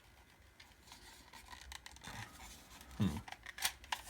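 Paper and plastic being handled: faint scratching and rustling, then a soft thump about three seconds in followed by a few sharp clicks.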